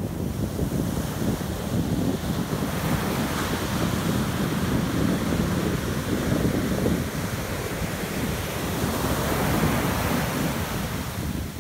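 Ocean surf breaking and washing up the beach, a steady rushing with hiss swelling as waves wash in, about two seconds in and again near the end. Wind buffets the microphone with a low rumble throughout.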